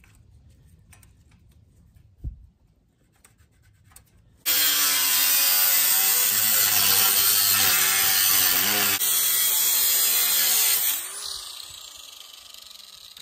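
A corded angle grinder with a cutoff disc slicing through thin galvanized steel sheet: it starts about four seconds in with a loud, steady grinding hiss over the motor's whine, cuts for about six seconds, then is lifted off and spins down near the end, falling in pitch.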